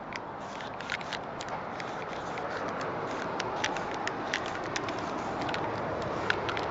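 The wide 15 mm felt nib of a Molotow Speedflow paint marker scratching across rough painted plaster, giving irregular short scratchy ticks over a steady outdoor hiss.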